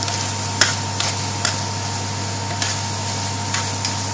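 Spatula stirring minced meat in a stainless steel pan, with a few light clicks of the spatula against the pan over a steady hum and hiss.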